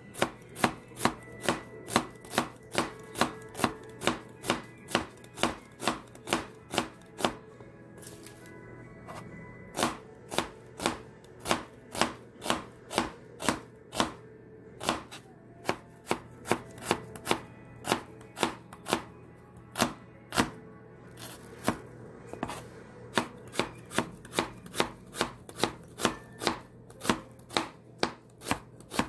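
Kitchen knife chopping onion on a cutting board in steady sharp strikes, about two a second, pausing briefly twice.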